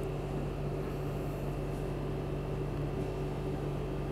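Steady background hum, with a few constant tones over a faint hiss and no change in level.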